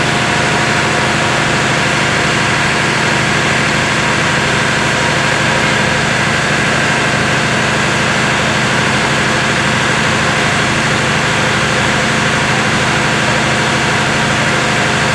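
Steady drone of a running engine, even and unchanging in level, with a constant hum.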